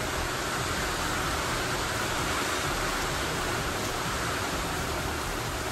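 Steady rain on the shop roof: an even, unbroken hiss.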